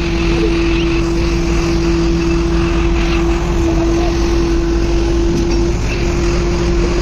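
A motor engine running at a steady speed: a constant droning hum over a low rumble, with a slight change in the tone about six seconds in.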